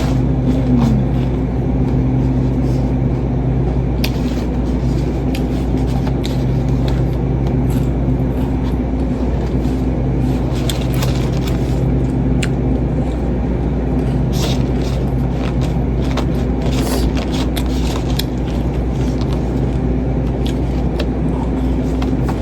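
Scattered crisp crunches of someone eating a crunchy puffed-rice chatpate snack, over a steady low hum.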